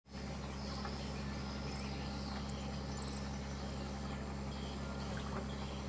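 Steady night insect chorus: a continuous high cricket trill over a low, steady hum.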